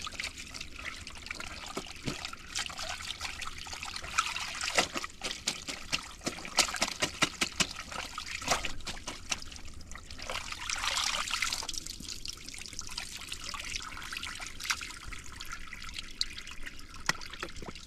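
Water trickling, with many small irregular clicks and splashes.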